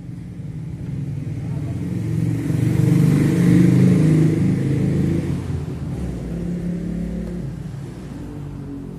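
Vehicle engine rumble that swells to its loudest three to four seconds in, then eases off.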